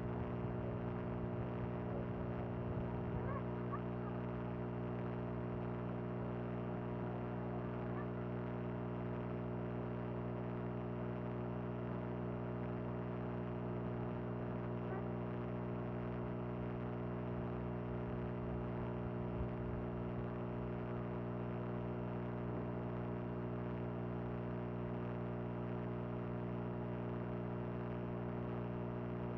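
A steady, unchanging droning hum made of many tones stacked together, with no change in pitch or level.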